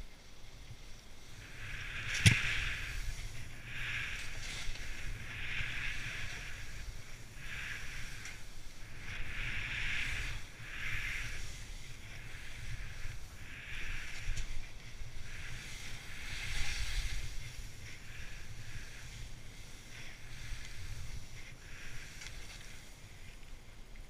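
Skis swishing through snow in a run of turns, a hiss every second or two, over a low rumble of wind on the microphone. A single sharp knock about two seconds in.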